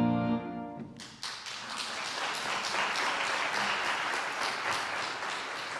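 A held keyboard chord dies away in the first second, then a congregation applauds steadily.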